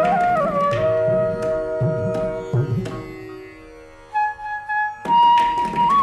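Carnatic flute music: a flute plays held, gliding notes over drum strokes. About halfway through, the music drops away to a quiet held note, then the flute and drums come back in loudly near the end.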